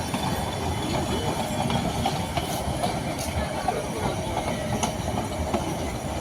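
Nilgiri Mountain Railway toy train rolling along the metre-gauge track as it arrives, with a steady rumble of wheels on rails and scattered clicks from the wheels and couplings.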